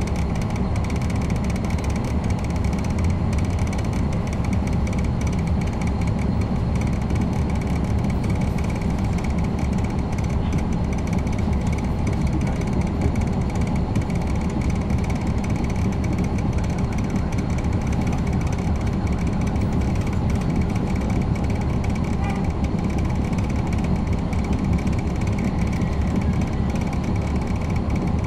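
Caterpillar C13 ACERT diesel engine of a NABI 416.15 transit bus heard from the rear seats inside the cabin, running with a steady, even rumble.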